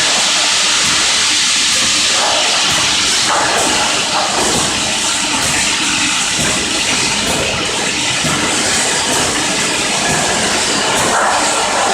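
Piston pump filling and capping machine running: a steady hiss with a rapid, irregular clatter of small knocks and clicks.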